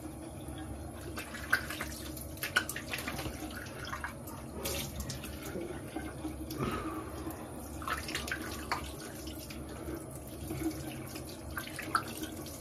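Bathroom sink tap running while water is splashed onto the face in handfuls, with irregular splashes and drips over the steady flow.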